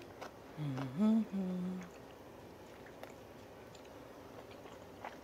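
A woman's short closed-mouth hum while eating, a two-part "mm-mm" that rises in pitch and then holds, about a second in. After it, only faint chewing noise and a few small clicks.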